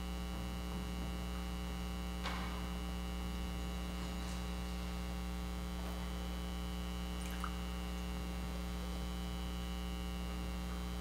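Steady electrical mains hum, with a few faint, light clicks.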